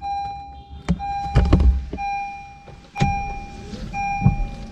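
A car's warning chime beeping steadily about once a second, one clear tone per beep, while the windscreen wipers sweep across the wet glass with a few dull thumps.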